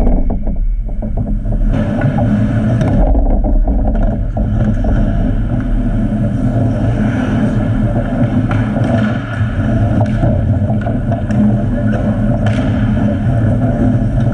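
Ice hockey game sounds in an indoor rink: a loud, steady low rumble with scattered clicks and clatter from sticks, skates and puck.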